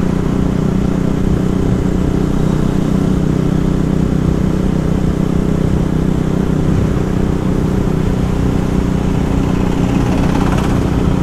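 KTM Duke motorcycle's single-cylinder engine running steadily at a light city cruise of about 35 km/h, with wind and road noise rushing over the microphone.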